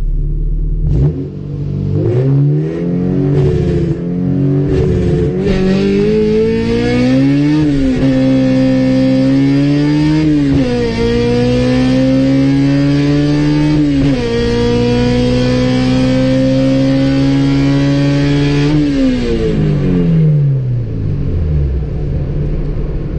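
Honda B20 VTEC four-cylinder swap in a 1991 Civic EF hatchback at full throttle on a drag run. The engine note climbs through the gears, dropping in pitch at three quick upshifts, then falls away near the end as the driver lifts off. It sounds real healthy.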